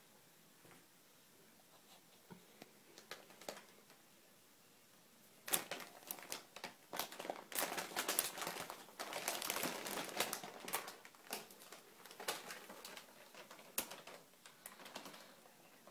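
Brown paper bag crinkling and rustling as two cats scuffle inside it. A few faint crackles come first; about five seconds in it turns into dense, loud crinkling for several seconds, then thins out to scattered rustles near the end.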